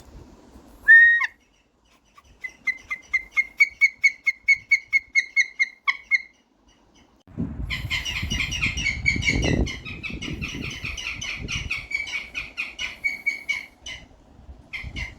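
A falconry bird of prey calling: one call about a second in, then a rapid series of harsh, repeated calls at about four a second, pausing, then resuming more densely with a low rumble under them for a couple of seconds.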